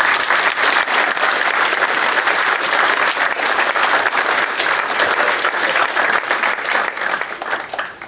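Audience applauding steadily, dying away near the end.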